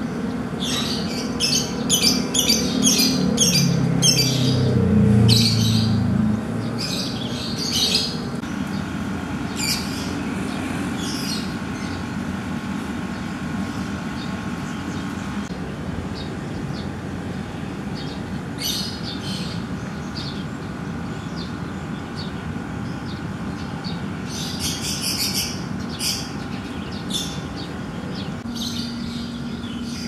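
Small birds chirping in quick clusters of short, high chirps over a steady outdoor background. A low rumble swells over the first few seconds and fades out.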